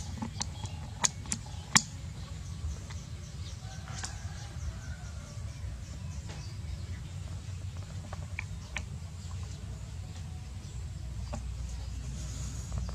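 A few sharp taps in the first two seconds as the baby macaque's hands and feet strike the plastic table. Under them runs a steady low rumble with faint bird calls.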